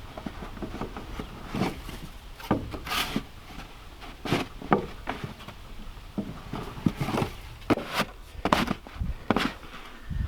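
Irregular crunches and scrapes in deep snow, about fourteen in ten seconds, with no steady rhythm.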